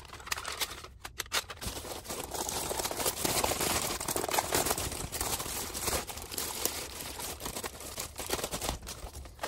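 Clear plastic bag crinkling and rustling as hands unwrap a stack of plastic-roadbed O-scale track sections, in an irregular run of small crackles.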